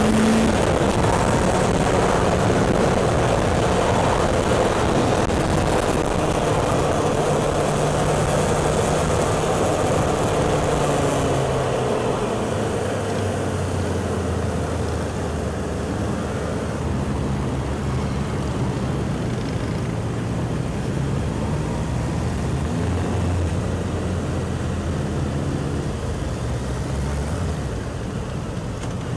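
Riding in a procession of motorbikes on a 1997 Honda CBR600F: the sports bike's inline four-cylinder engine running under way, mixed with the other bikes and wind noise on the helmet-mounted microphone. The engine note shifts in pitch now and then, and the sound gets a little quieter near the end.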